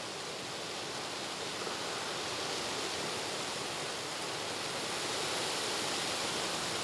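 Steady rustle of leaves and branches in strong wind, an even hiss with no distinct events.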